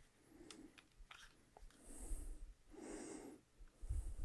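Faint handling noise from a portable recorder being turned over in the hands: a few light clicks, soft rustles and low bumps.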